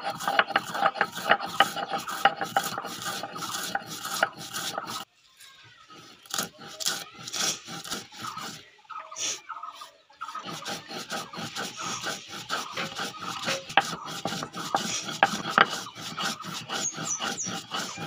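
Stone roller scraping and crushing dry-roasted whole spices on a flat grinding stone (sil-nora), grinding them to powder in quick rasping back-and-forth strokes. The grinding stops for a quieter stretch about five seconds in and starts again around ten seconds in.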